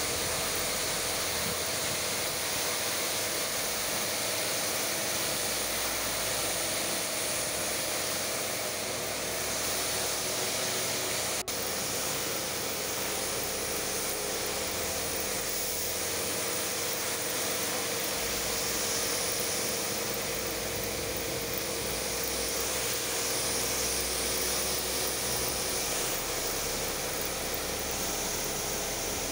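Pressure washer running, its high-pressure water jet spraying onto a stone floor: a steady hiss of water with a faint motor hum under it.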